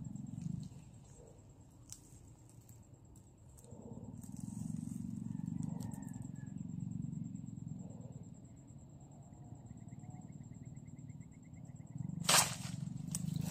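A butterfly net swung down hard onto leafy undergrowth, a sudden swish and crash near the end, over a steady high-pitched buzz and low rustling of plants.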